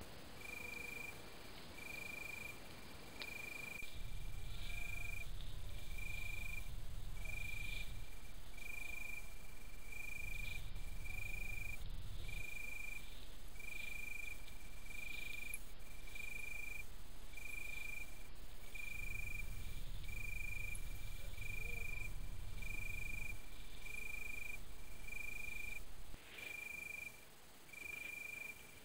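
A calling insect at night: one short high note repeated evenly about once a second. A low rumble comes in about four seconds in, then drops out and returns several times.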